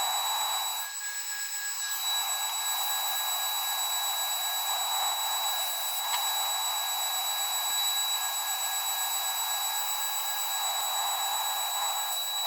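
High-speed spindle of a homemade CNC machine running steadily during engraving: a constant high whine over a hiss that swells slightly every second or so.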